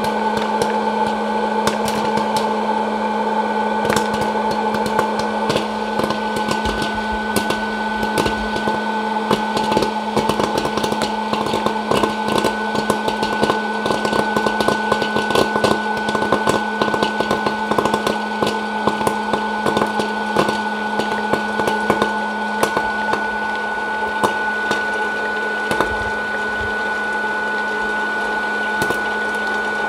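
Hot-air popcorn popper running: a steady fan-motor hum with a whine. Corn kernels pop over it as many sharp, irregular clicks, thickest in the middle stretch.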